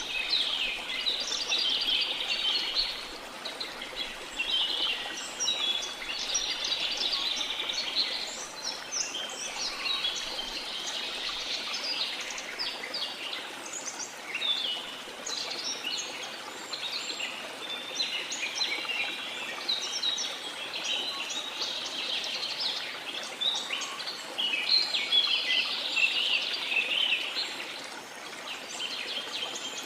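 Tropical rainforest birds singing and chirping in a dense, continuous chorus of many overlapping calls, over a faint steady rush of falling water.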